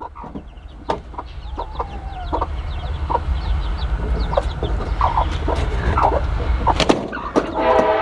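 Hens clucking and squawking with scattered sharp knocks, over the low rumble of an approaching train that grows steadily louder. A train horn starts sounding near the end.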